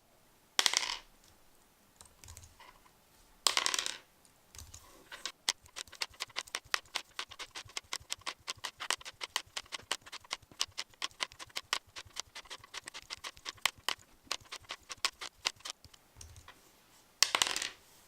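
A small 3D-printed plastic five-sided die being thrown and tumbling over and over: a few short rattles, and in between a long run of quick sharp clicks, about four to five a second.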